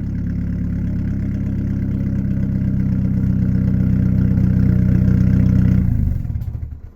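Car engine running steadily through a 3-inch stainless exhaust with no muffler, a deep even drone that grows slowly louder. It stops about six seconds in and dies away to quiet.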